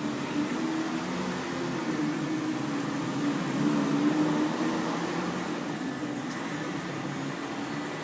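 A motor running steadily, its low hum wavering slightly in pitch over a steady rushing noise.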